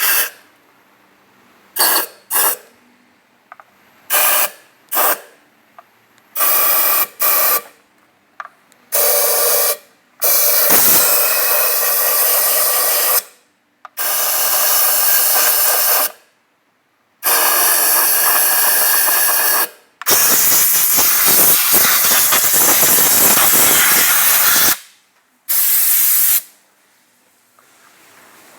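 Hissing spray in repeated blasts. There are several short bursts over the first eight seconds, then longer blasts of two to four seconds each, and the longest, about five seconds, comes near the end.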